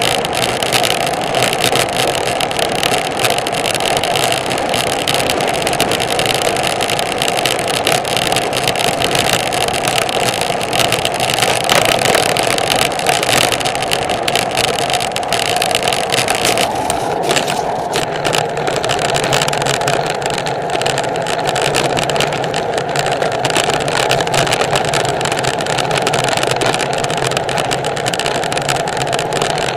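Steady rush of wind over a handlebar-mounted camera's microphone as a road bike is ridden fast on tarmac, with tyre noise underneath. The high hiss thins a little past halfway.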